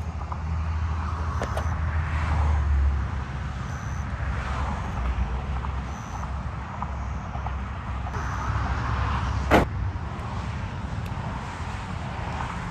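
Low rumble of road traffic going by, swelling and fading, with a single sharp click about nine and a half seconds in.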